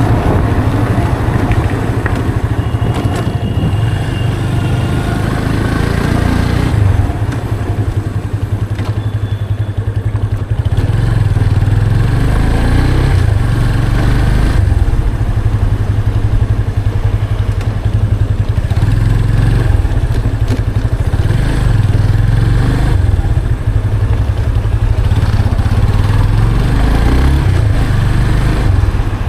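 Yamaha FZ 25's 249cc single-cylinder engine with stock exhaust, running under way on the road. It eases off and goes quieter about seven seconds in, then pulls back up to a steady, louder run from about eleven seconds on.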